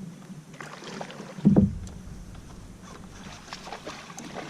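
Water and handling sounds around a kayak while a hooked bass is fought, with one loud low thump about a second and a half in.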